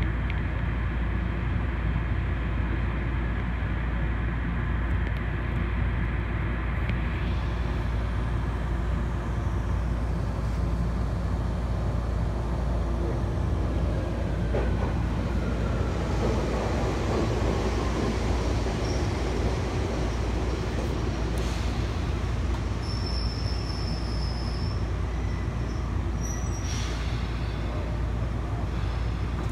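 Steady low rumble of a Chichibu Railway electric train arriving at and standing in a station, heard from inside the train. A whine falls in pitch about halfway through, and a few short high tones sound near the end.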